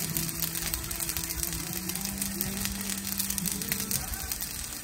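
Rice frying on a hot griddle pan over a portable gas camping stove, sizzling with a steady dense crackle.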